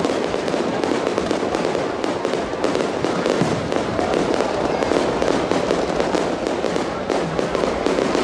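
Fireworks going off in quick succession: a dense, continuous crackling and popping of many small reports, steady in loudness, with no single big bang standing out.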